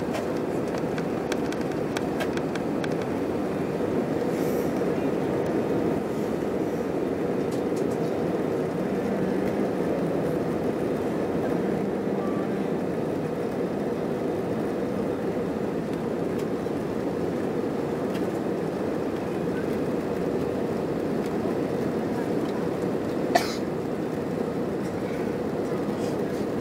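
Steady cabin roar of an airliner in flight, jet engines and rushing airflow heard from inside the cabin, with a faint steady hum. A single sharp click near the end.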